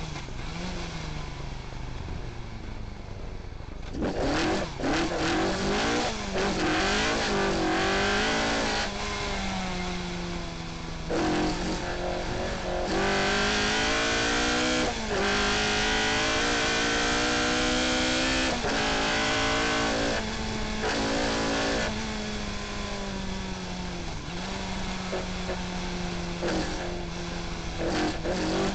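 Ford Escort Mk2 rally car's engine heard from inside the cabin. It runs at low revs, then about four seconds in it pulls away hard at full throttle, revving up and dropping at each quick gear change, held flat out with short lifts off the throttle as it is driven at stage speed.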